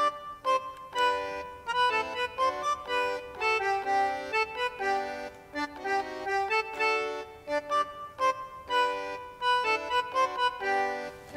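Background music: a bright melody of short, changing notes on an accordion-like reed instrument.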